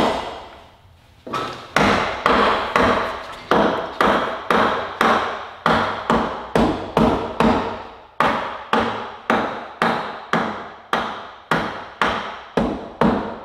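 A hammer striking repeatedly at about two blows a second, each blow sharp with a short ringing decay, starting a little over a second in.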